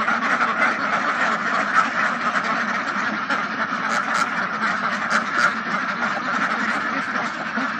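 A large flock of domestic ducks quacking all at once, hundreds of calls overlapping into a steady, dense chatter.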